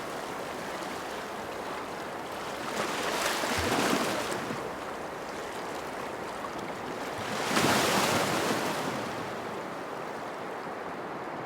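Ocean surf: a steady wash of water noise, with two waves swelling and breaking, one a few seconds in and one past the middle.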